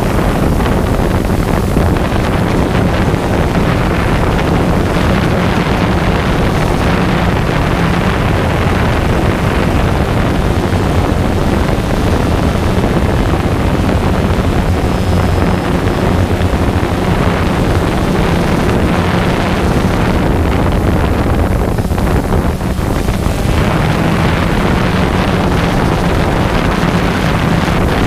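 A quadcopter drone's motors and propellers running in steady flight, heard through its onboard camera's microphone as a loud, even buzz with wind noise.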